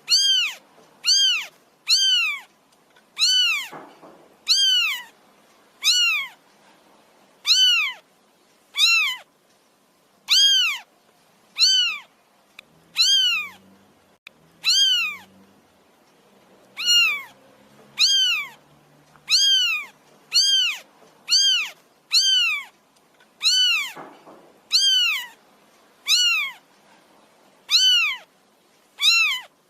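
A feral kitten meowing over and over, about once a second, to beg for food. Each meow is high-pitched and arches up then down in pitch.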